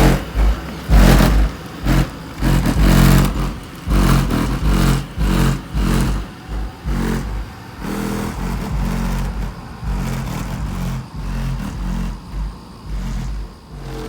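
Rap music with heavy, pulsing bass played loud through Skar Audio car subwoofers, the low bass notes stepping in pitch with the beat.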